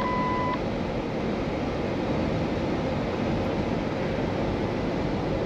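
Steady in-cab drone of a 2016 Kenworth T680 semi truck cruising at highway speed: its PACCAR MX-13 diesel engine running under road and wind noise. About half a second in, a steady electronic beep stops.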